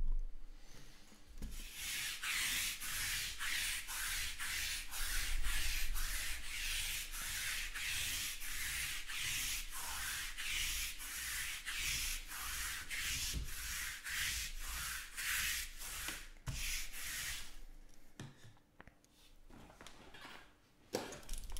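Rhythmic rubbing strokes, about two a second, that stop about three-quarters of the way through.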